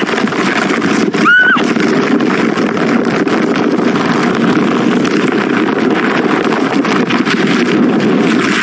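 Sled sliding fast over icy, crusted snow: a loud, steady scraping rush. About a second and a half in comes one short, high squeal that rises and falls.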